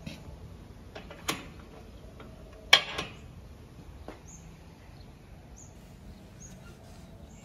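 Garden gate being opened and shut: the metal latch clicks and the gate knocks, the loudest knock nearly three seconds in with a smaller one just after. A few short bird chirps follow.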